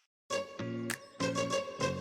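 Background music: a brief silence, then a new track starts about a third of a second in, with a steady beat and bass notes.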